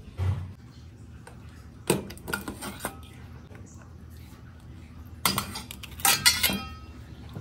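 A metal spoon clinking and scraping against a plastic tub and a stainless steel bowl while marinated crabs are scooped out of their brine. There are a few clicks about two seconds in and a louder run of clinks with some ringing near the end.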